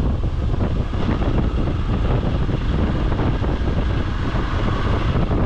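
Motorcycle under way, its engine running steadily beneath heavy wind buffeting on the camera microphone.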